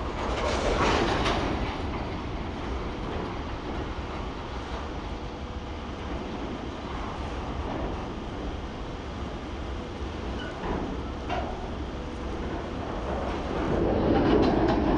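Arriving freight train of empty open gondola wagons rolling past on the rails with a steady rumble. It swells about a second in and again near the end, with a few sharp clanks near the end.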